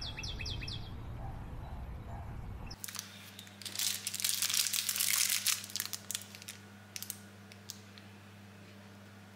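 Clear plastic wrappers of packaged marshmallows crinkling as they are handled, starting about three seconds in and loudest for the next two or three seconds, then a few lighter rustles. Before that, low outdoor rumble with a few bird chirps at the very start, and a low steady hum under the crinkling.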